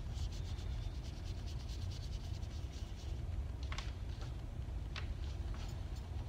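Fast, light scratching of a drawing tool rubbing on paper, then a few sharp small clicks and taps as the tools are set down and picked up, over a low steady hum.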